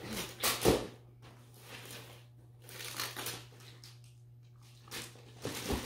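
Wrapping paper being torn and crumpled in several rough bursts, the loudest about half a second in and another cluster near the end.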